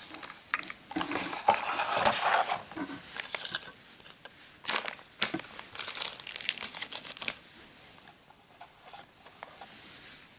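Plastic packaging crinkling and rustling, with light cardboard box handling, as the contents of a boxed sports watch are taken out. The rustling comes in two busy spells, about a second in and again around the middle, then eases off.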